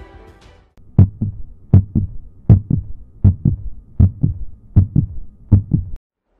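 Heartbeat sound effect: seven slow double thumps, lub-dub, about three-quarters of a second apart, that stop suddenly near the end. Music fades out at the start.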